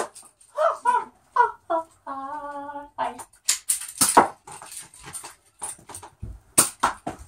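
Sharp clicks and knocks, typical of foam-dart blasters firing and darts striking, loudest about four seconds in and again near the end. Before them come short voice-like sounds and one held, humming tone lasting about a second.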